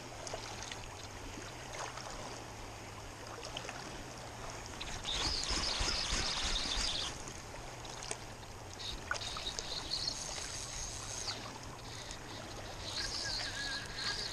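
River water flowing and rippling along a stony bank, swelling louder about five seconds in and again near the end.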